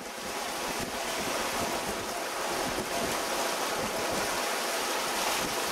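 Steady rush of wind and breaking sea water around a sailing yacht moving fast through rough ocean, with wind buffeting the microphone.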